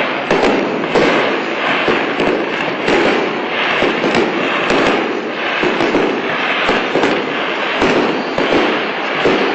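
Aerial display fireworks bursting in rapid succession: many overlapping bangs with a continuous crackle between them and no pause.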